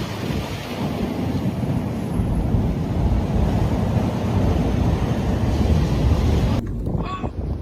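Strong wind buffeting the microphone in a snowstorm, a heavy, fluttering low rumble. It breaks off abruptly about six and a half seconds in, and a different, quieter sound follows.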